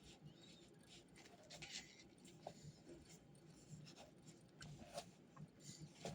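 Faint scratching of writing on paper, in short irregular strokes.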